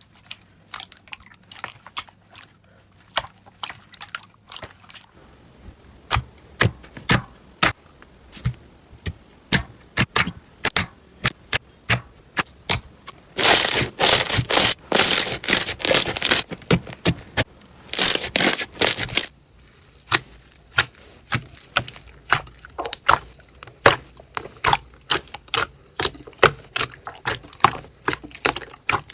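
Slime being squeezed and pressed by hand, giving quick sharp crackles and clicking pops; they come thickest and loudest for several seconds in the middle.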